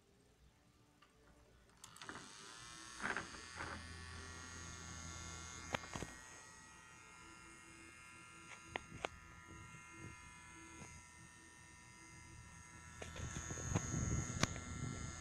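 Small battery-powered mini fan's electric motor switching on about two seconds in, its whine rising in pitch as it spins up and then running steadily. A few sharp clicks and knocks come through it, and there is louder rustling near the end.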